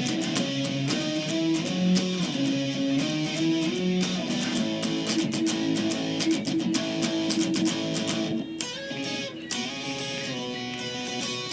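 Electric guitar played through a Boss SD-2 Dual Overdrive pedal, strummed chords and picked note runs. About eight and a half seconds in, the playing thins out to fewer, held notes.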